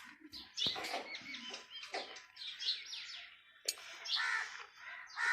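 Small birds chirping and twittering in quick, overlapping short calls, with two sharp clicks, one under a second in and one near the four-second mark.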